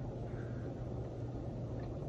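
Quiet room tone: a steady low hum with faint background hiss and no distinct event.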